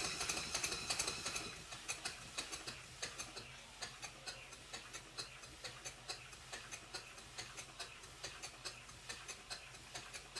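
Stuart Twin Victoria twin-cylinder model steam engine running slowly. Its exhaust hiss fades about a second and a half in as the supply is turned down, leaving a soft, even ticking from the moving parts at about three ticks a second. The engine has been retimed and re-oiled and is running smoothly, and it stands on bubble wrap, so the mechanical noise is not amplified.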